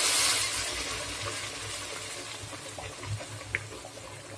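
Water poured into a hot pot of rice for pulao. It hisses loudly at first, then dies down within about a second to a softer splashing stream with scattered small pops as the pot fills.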